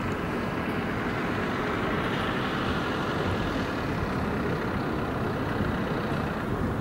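Steady, even outdoor traffic noise, swelling slightly a couple of seconds in.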